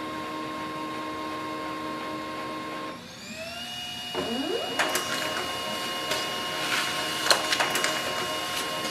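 Pantum P2502W laser printer running a print job. Its motors hum with steady tones, drop off about three seconds in and spin up again with a rising whine. From about five seconds in, clicks come as the sheet is fed through and out onto the output tray.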